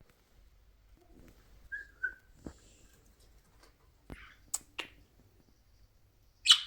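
Pet budgerigar: two short whistled chirps about two seconds in, then a few sharp clicks, and a loud, short, sharp sound near the end.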